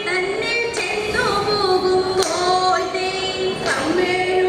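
A woman singing through a microphone and PA, holding long notes that slide between pitches. Sharp hand claps fall about every one and a half seconds.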